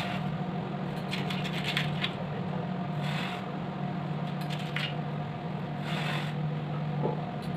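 Matchstick heads flaring with short fizzing bursts as they are pressed against a hot soldering iron tip, several times, with small handling clicks in between. A steady low hum runs underneath.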